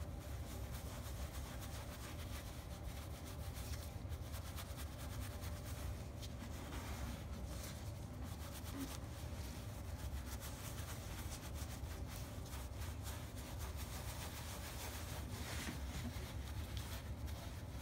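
Paint brush scrubbing wet chalk paint into textured upholstery fabric: faint, irregular scratchy rubbing over a low steady hum.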